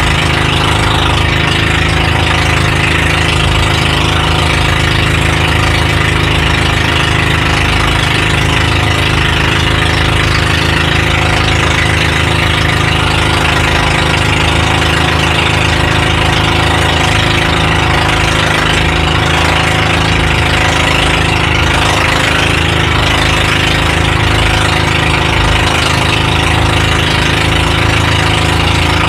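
Outrigger bangka boat's engine running steadily while the boat is under way, an even drone with no change in pace.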